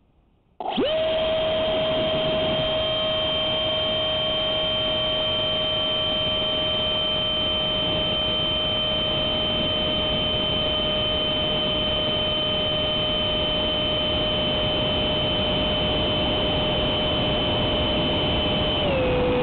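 Electric ducted fan of a Durafly Vampire RC jet, heard from a camera on the airframe: silent for a moment, then spooling up abruptly to full power with a steady high whine over a loud rushing noise during takeoff and climb. Near the end the whine drops slightly in pitch as the fan slows.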